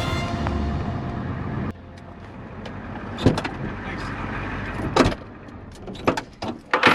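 Background music that cuts off about a second and a half in, giving way to a vehicle running with a low steady rumble and several sharp clunks, like doors or latches.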